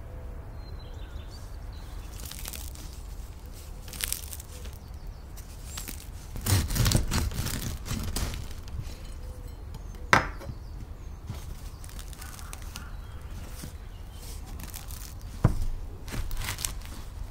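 Serrated bread knife sawing through the crisp crust of a sourdough loaf on a wooden cutting board: a crunchy rasping for about two seconds midway, followed by a couple of single sharp cracks.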